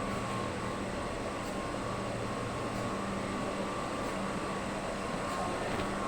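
Steady hum of running kitchen machinery, with a constant low drone and a fixed higher whine over an even hiss.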